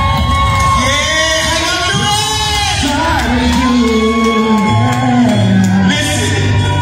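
Male vocal group singing live through microphones over amplified backing music, with long held vocal notes bending in pitch above a sustained bass line.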